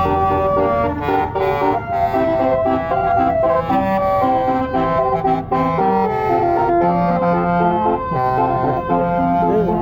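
Bus telolet basuri horn playing a tune: a quick run of pitched horn notes, with a short sweeping glide near the end.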